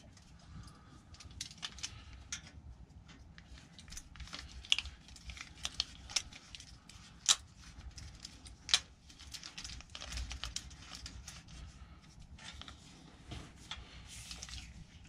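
Small metal parts being handled and fitted by hand: a bolt and washer worked into a pannier rack's stay at a bicycle's rear frame mount, giving light rattles and scrapes with a few sharper metallic clicks around the middle.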